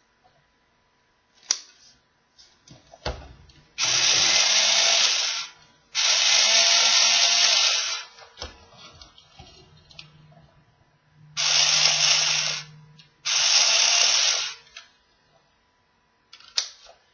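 Battery-operated toy power drill run in four bursts of about one and a half to two seconds each, a buzzing whir over a low motor hum, with a few short clicks of handling between the bursts.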